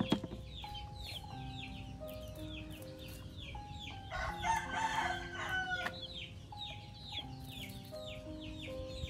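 A rooster crowing once, about four seconds in, over background music with a slow melody of held notes. Short, high, falling chirps repeat about twice a second.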